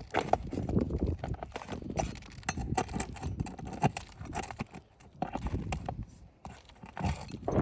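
Irregular knocks, taps and scraping from hands-on work on a shingled roof during a shingle repair, quieter for a moment past the middle.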